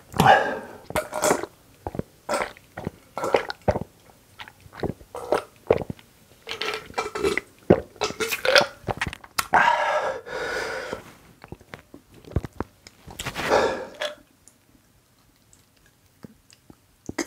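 Close-miked chewing and mouth sounds, then swallowing gulps of a drink from a glass jar, followed by two long burps.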